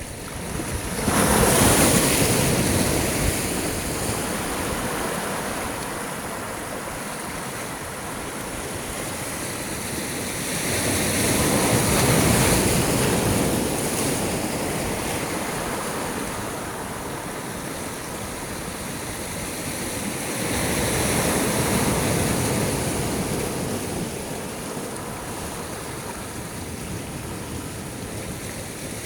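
Sea waves breaking and washing, swelling three times about ten seconds apart, with a steady rush of surf between.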